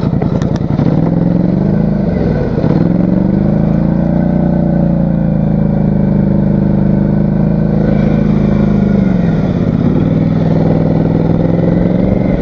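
Polaris Sportsman 850 ATV's twin-cylinder engine running under throttle, its pitch steady for long stretches. It drops and climbs back about two seconds in, and sags again near the end before steadying.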